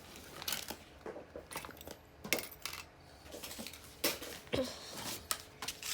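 Scattered clicks and light clatter of small plastic fidget toys being handled and knocked together.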